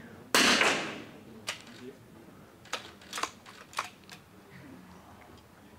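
.22 rimfire target rifle shot about a third of a second in, with a short echo dying away. About half a dozen faint sharp clicks follow, irregularly spaced, over the next few seconds.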